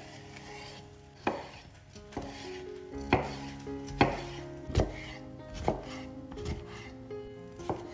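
Kitchen knife chopping on a cutting board in slow, separate strokes about a second apart, over background music.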